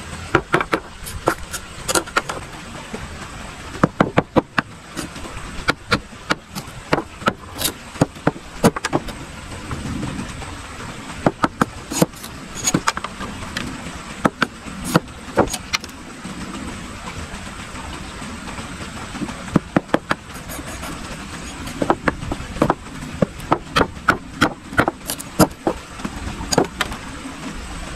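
Small machete chopping and splitting a thin bamboo stick stood on a wooden block: sharp knocks, irregular and often in quick runs, with a lull of a few seconds past the middle.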